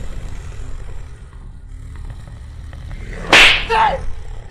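A low rumbling drone, then about three seconds in a sudden loud harsh cry from a person, followed by two short groans.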